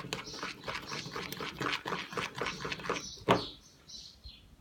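Homemade glue-and-detergent slime being kneaded and pulled by hand, making quick irregular sticky squelches and smacks; the slime is still sticking to the fingers. A sharp knock near the end, then it goes quieter.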